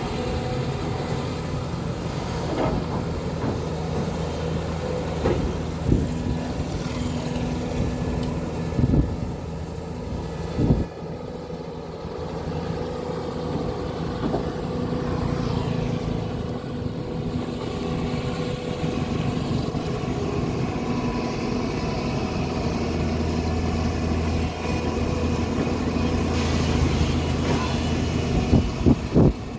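Hyundai SMART 215L hydraulic excavator's diesel engine running steadily while digging, with a few sharp knocks spread through.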